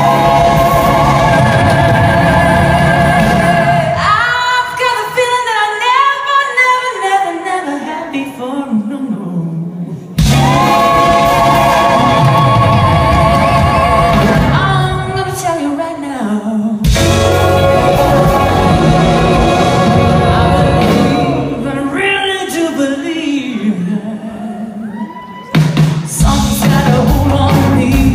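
Live pop band playing and singing, heard from the audience in a large hall: voices with vibrato over drums, bass and guitars. The band drops back and then crashes in again suddenly three times, about ten, seventeen and twenty-five seconds in.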